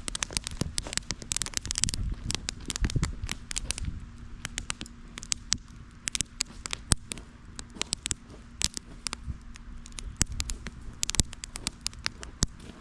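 Starter fire in a ground forge crackling and popping with sharp, irregular snaps, packed most closely in the first two seconds.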